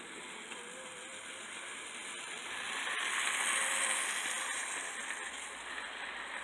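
N scale model locomotive running on its track and pulling a string of cars: a steady whirring hiss of motor and wheels on the rails, with faint clicks. It grows louder around the middle as the train comes close, then eases off.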